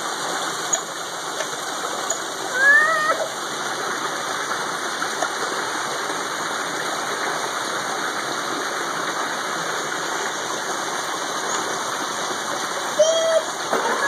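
A small pond waterfall, water splashing steadily over rocks into a koi pond. Two brief pitched calls rise over the splashing, a louder one about three seconds in and another near the end.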